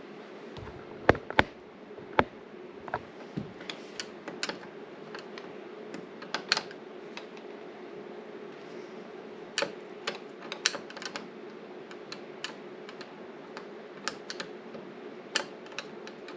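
Irregular sharp clicks and taps of a hand Phillips screwdriver working a door knob's mounting screw, the tip and knob hardware ticking and knocking.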